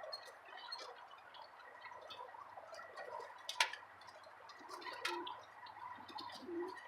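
Racing pigeons cooing faintly, a few soft low calls in the second half, with a few sharp clicks and taps from the birds.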